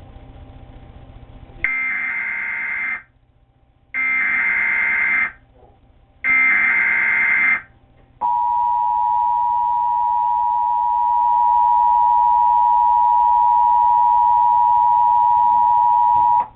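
Emergency Alert System tones from a television speaker: three short bursts of warbling SAME data-header tones, then the steady two-tone EAS attention signal, held for about eight seconds.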